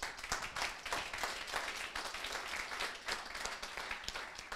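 Audience applauding, many hands clapping in a dense patter that starts all at once and begins to fade near the end.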